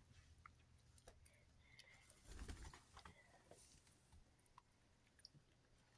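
Near silence: faint scattered clicks and soft rustling, with a brief low rumble about two and a half seconds in.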